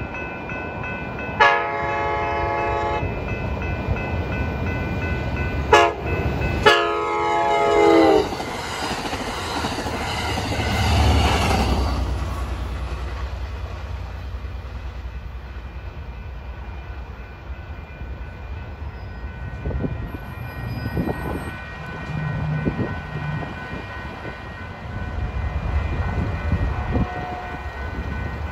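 Amtrak Capitol Corridor passenger train sounding its multi-note horn for a grade crossing: a long blast, a short one, then a long blast whose pitch drops as the locomotive passes. The train rumbles by for several seconds after that, and near the end another train is heard approaching.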